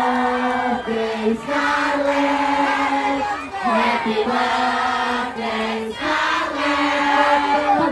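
A group of voices singing together in long held notes, phrase after phrase.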